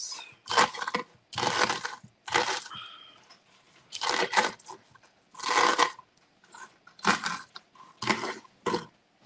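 A knife chopping through crispy air-fried hash-brown potatoes on a wooden cutting board: about ten crunchy cuts at an uneven pace.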